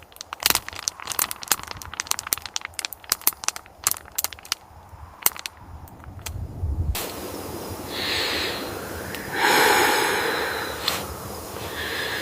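Wood fire crackling, with sharp separate pops and snaps. About seven seconds in it cuts to a steady rushing noise with louder breathy swells every second or two.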